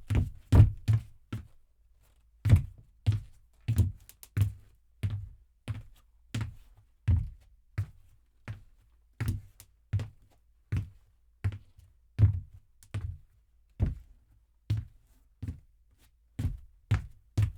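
A man's boot footsteps on stairs, heavy thuds at an even walking pace of about one step every two-thirds of a second. A few quicker steps come at the start, then a short pause, and the steps quicken again near the end.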